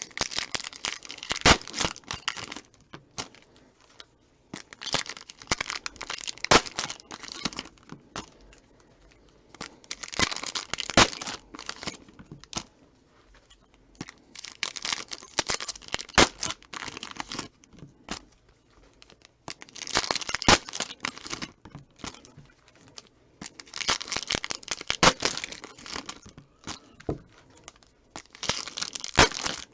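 Wrappers of trading-card packs being torn open and crinkled, one pack after another, in bursts of a couple of seconds every four to five seconds.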